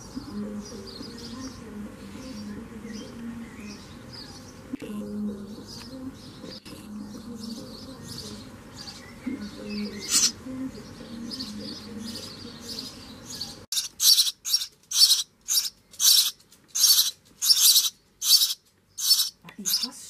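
Sparrow nestlings, about nine days old, begging with loud, short, high calls repeated about twice a second, starting about 14 seconds in after a long quieter stretch.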